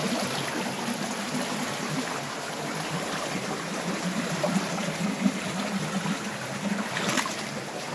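Shallow creek water running and trickling over rocks, a steady rushing sound.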